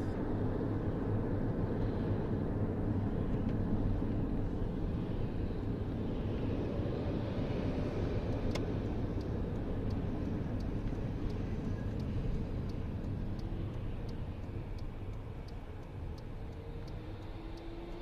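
Car's engine and tyre noise heard from inside the cabin while driving: a steady low rumble that grows quieter near the end. Through the second half a light, regular ticking runs along, about one and a half ticks a second.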